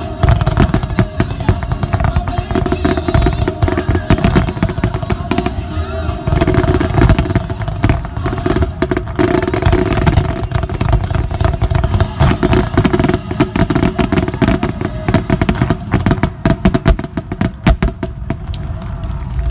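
Rapid, irregular fireworks bangs, many overlapping reports throughout, over music playing through loudspeakers.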